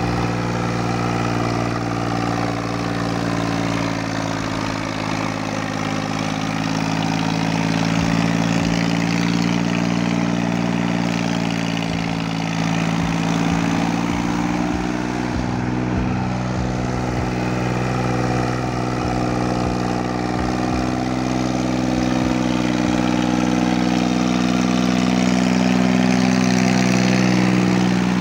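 Escort tractor's diesel engine running steadily under load as it drives through loose sand, its note rising slightly and getting a little louder in the second half.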